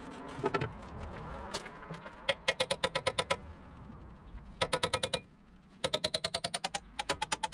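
Three runs of rapid, evenly spaced clicking, about ten clicks a second, each run lasting around a second.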